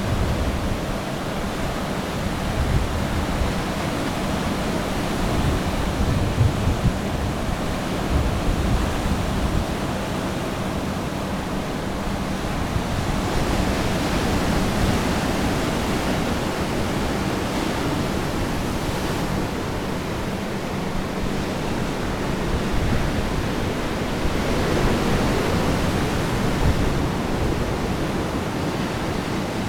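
Ocean surf breaking and washing ashore in a continuous rushing wash, with wind buffeting the microphone in uneven low rumbles and a faint steady low hum underneath.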